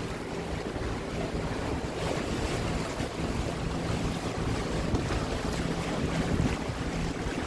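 Small open river tour boat under way: its motor running with a steady hum, water splashing along the hull, and wind buffeting the microphone.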